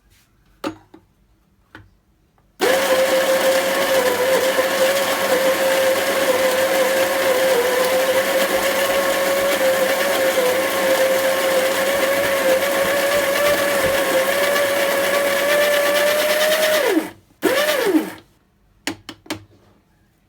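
A small high-speed electric motor runs steadily with a whine for about fourteen seconds, then winds down in pitch. It gives one short second burst that also winds down, followed by a few clicks.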